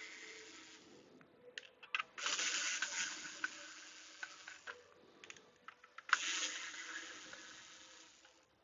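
Hands handling computer parts and hardware: a few small clicks, then two stretches of rustling, scraping handling noise, each starting suddenly and fading away.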